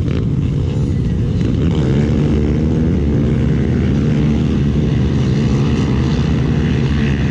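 Quad bike (ATV) engine idling steadily.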